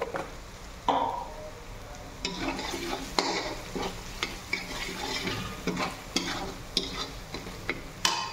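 Spiced masala frying and sizzling in a kadai, stirred with irregular scraping strokes of a spoon against the pan, roughly one stroke a second.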